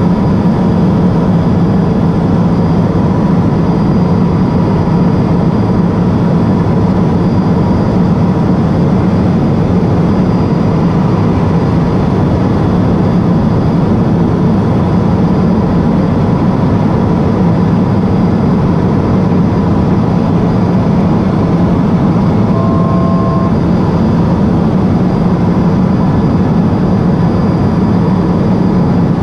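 Steady drone of a Cessna P210 Silver Eagle's Rolls-Royce turboprop engine and propeller, heard inside the cockpit in flight. About three-quarters of the way through, a short electronic beep of two pitches at once sounds for about a second.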